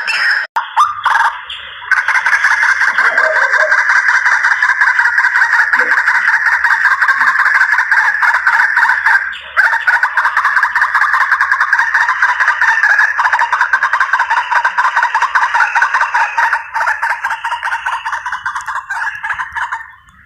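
White-breasted waterhen (ruak-ruak) calls used as a hunting lure: a loud, rapid, continuous run of harsh repeated notes. The run breaks off briefly about a second in and again about halfway through.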